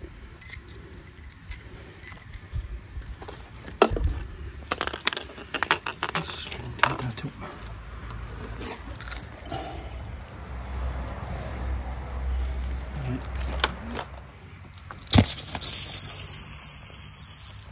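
Clicks, knocks and rattles of a small electric submersible pump and its layflat hose being handled and carried. Near the end a sharp click, the loudest sound, is followed by about two seconds of high hiss.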